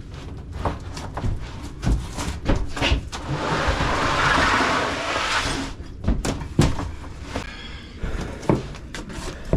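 A new air handler drain pan being unboxed and handled: a run of knocks and clunks, with a rasping, sliding noise lasting about two and a half seconds near the middle.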